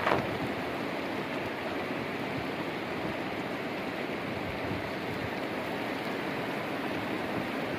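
Heavy rain pouring down and splashing onto flooded grass and paving, a steady dense hiss, with a brief louder burst at the very start.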